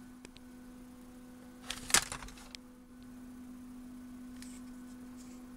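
Steady electrical mains hum with a short burst of clicks and clatter about two seconds in, the loudest sound.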